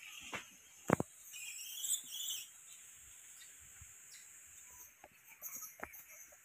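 Woodland ambience with a steady high insect buzz. A sharp snap or knock comes about a second in, followed by a brief high, warbling chirp of a small animal, with scattered light rustles and clicks in the dry leaf litter.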